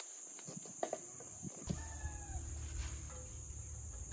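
A rooster crowing once, a short call that falls slightly in pitch about two seconds in, over a steady high-pitched drone of crickets. A low rumble comes in just before the crow.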